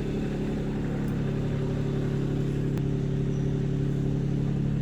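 Holden Commodore VE V6 engine idling steadily. The engine has a misfire, and the mechanic suspects it is worn and burning oil, with oily, blackened plugs on all six cylinders.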